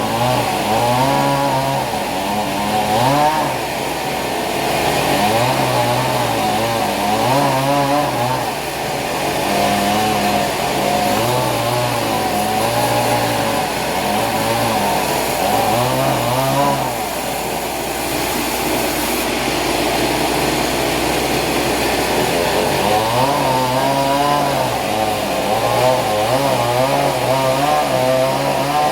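A small petrol engine of the chainsaw kind, running with its pitch rising and falling over and over.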